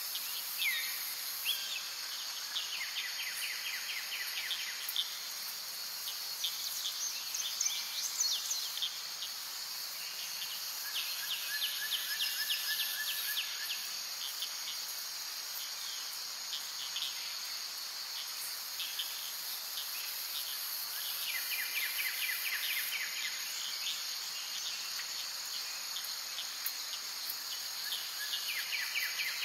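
Outdoor nature ambience: insects buzzing steadily and high, with birds calling in short chirping trills every few seconds.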